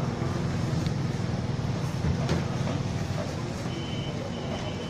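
Steady low mechanical hum over a background of noise, with a faint thin high tone for about a second near the end.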